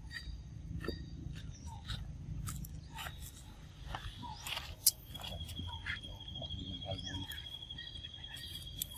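Scattered close clicks and crackles over a low rumble, with one sharp louder click about five seconds in. A steady, high-pitched trill starts at about the same moment and runs to near the end.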